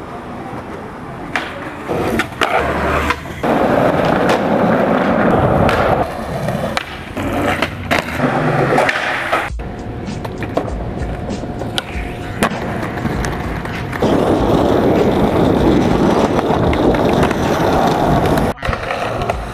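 Skateboard wheels rolling over rough concrete, with sharp clacks of the board from tricks and landings. The sound breaks off abruptly twice, about halfway through and near the end.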